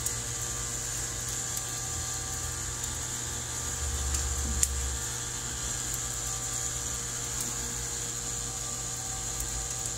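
Steady background drone, a low hum under an even high-pitched whine, with a low swell about four seconds in and one faint click just after.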